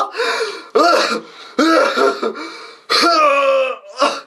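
A man coughing on purpose: a run of about five loud, hacking coughs and throat-clearings, one after another with short pauses, each carrying a strained tone of voice.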